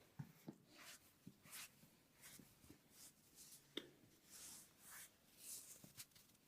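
Faint rubbing and swishing of hands working over hair and skin during a head massage, with scattered soft ticks and one sharper tick about four seconds in.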